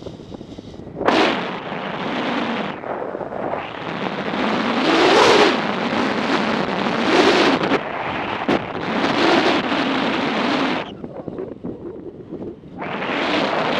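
Wind buffeting the microphone of a camera on a moving motorcycle, coming in loud gusts that swell and fade every second or two. It drops away briefly near the start and again about three-quarters through, with the bike's engine faint underneath.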